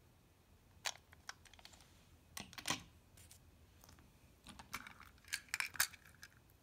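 Plastic Plarail toy train cars clicking and clattering as they are handled and set on a wooden surface: scattered sharp clicks, with a short cluster about two and a half seconds in and a busier run of clicks near the end.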